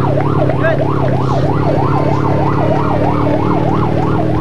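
Vehicle siren in a fast yelp, its pitch sweeping up and down about three times a second, over a steady low hum.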